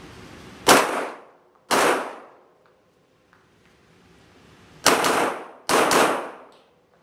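Glock 17 Gen 5 9 mm pistol firing: two single shots about a second apart, then after a pause of about three seconds, two quick pairs of shots.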